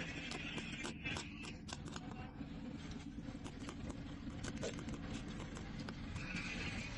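Irregular run of small, sharp plastic clicks and snaps from a Suzuki Cultus power window switch being handled and worked on during repair, over a steady low hum. The clicks come thickest about a second in and again around three to four and a half seconds in.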